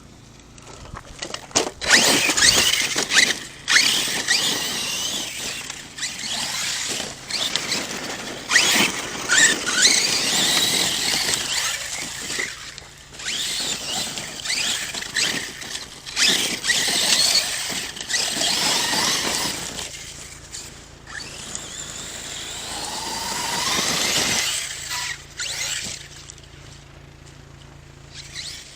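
ARRMA Kraton 6S brushless electric RC monster truck driven in repeated bursts of throttle on dirt, its motor and drivetrain whining high, rising and falling in pitch with each burst, with pauses between runs.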